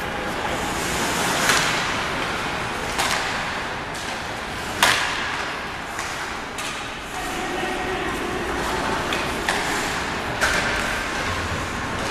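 Ice hockey play in an indoor rink: sharp clacks of sticks, puck and boards every second or two, the loudest about five seconds in, over a steady murmur of spectator chatter.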